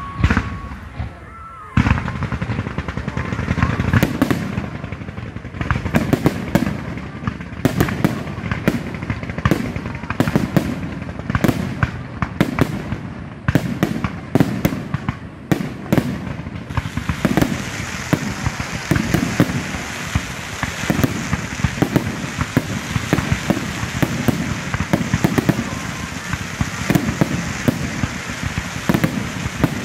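Fireworks display: aerial shells bursting in rapid, repeated bangs over the hiss and crackle of fountain fireworks. The bangs begin about two seconds in, and past the halfway point the crackling hiss grows thicker under them.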